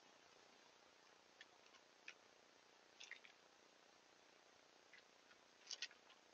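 Near silence with a low hiss and a scattering of faint, sharp clicks and ticks, the loudest a quick pair near the end: a Douglas squirrel scrabbling about on a mossy log.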